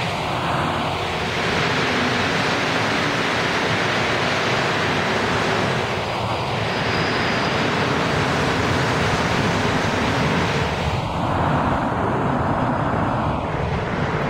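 Montreal Metro rubber-tyred train running past the platform and pulling out of the station, a loud steady noise with slowly sweeping tone as the cars go by.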